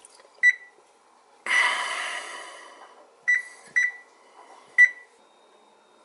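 Electric oven's touch-pad control panel beeping as the keys are pressed to set baking at 425°F. There is a short beep, then a longer, louder tone about a second and a half in that fades out, then three short beeps as 4, 2 and 5 are keyed in.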